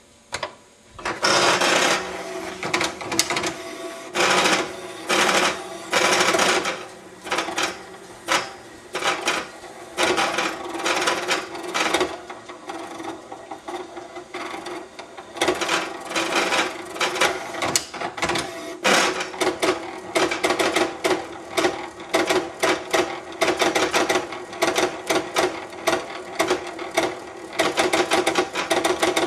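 HP 7475A pen plotter drawing: its motors drive the pen and paper back and forth with a steady whine under rapid clicking. It starts about a second in, and the sound rises and falls as the strokes change.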